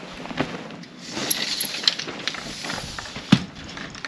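Footsteps and shuffling on gravel fill, with scattered small clicks and a single sharper knock about three seconds in.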